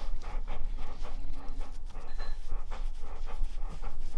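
Weimaraner panting rapidly and evenly, about four breaths a second: the heavy panting of a bitch in labor before her first puppy is born.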